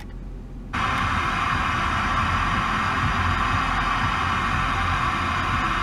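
Car radio tuned to an FM frequency where no station comes in clearly, giving steady static hiss through the speaker. The hiss starts about a second in, after a brief muted moment, over a low steady hum.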